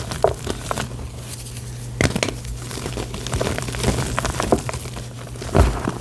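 Gym chalk (magnesia) rustled and crumbled by hand: irregular crinkling, crackling rustles, with heavier crunches about two seconds in and again near the end.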